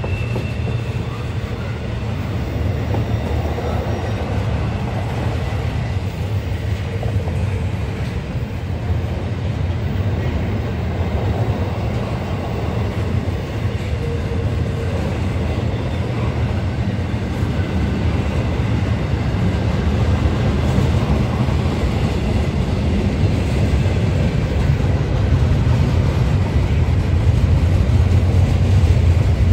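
Double-stack intermodal freight train's loaded well cars rolling past, a continuous low rumble of steel wheels on rail that grows a little louder toward the end.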